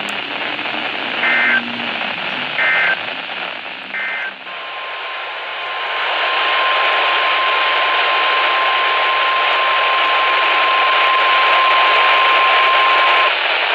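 Weather radio receiver sounding the Specific Area Message Encoding (SAME) data code as three short bursts of warbling digital tones, followed by the steady 1050 Hz emergency alert tone held for about nine seconds before cutting off. Radio static hisses underneath throughout and grows louder while the tone plays.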